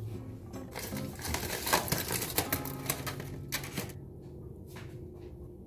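Metal fork clinking and scraping against a pasta bowl in a quick run of clicks and clatters, which dies away about four seconds in. A steady low hum runs underneath.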